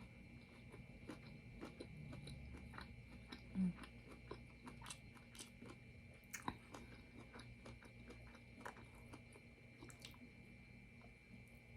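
Faint close-up chewing and mouth sounds of someone eating, with many small scattered clicks and crunches, and a brief hum about three and a half seconds in.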